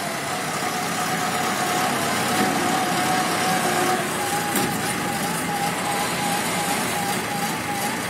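Diesel engine of a self-loading concrete mixer running steadily as its loading bucket is raised, with a thin whine that steps up in pitch about halfway through.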